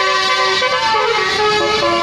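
Tour bus's Basuri telolet horn playing a tune: a run of held, changing musical notes with a short sliding note near the middle.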